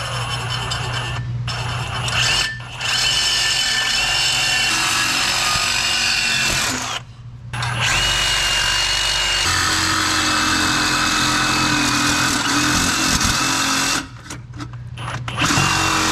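Ridgid cordless reciprocating saw cutting through an old exhaust up pipe on a 7.3 Powerstroke diesel, running in long stretches with a steady whine and several brief stops.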